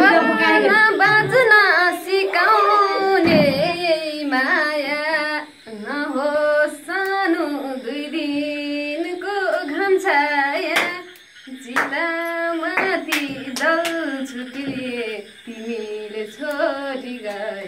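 A woman singing unaccompanied, holding and bending long notes in phrases, with a few scattered hand claps.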